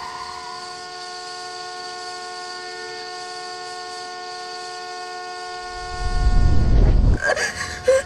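A car horn sounds without a break in one steady multi-note chord. Near the end a loud low rumble comes in for about a second and a half, then a girl starts gasping and whimpering.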